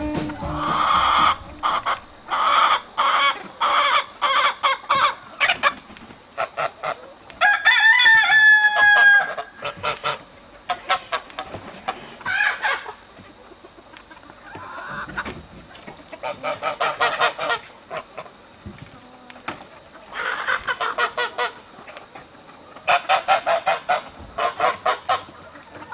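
Backyard chickens clucking in short, repeated runs of calls, with a rooster crowing once about eight seconds in.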